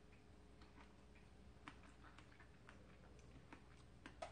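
Near silence: room tone with faint, irregular small clicks scattered throughout, a slightly stronger one just after four seconds in.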